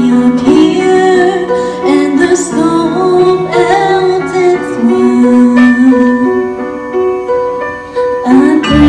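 A woman singing live into a microphone over instrumental accompaniment, holding long notes. Just before the end, a fuller, bass-heavy accompaniment cuts in abruptly.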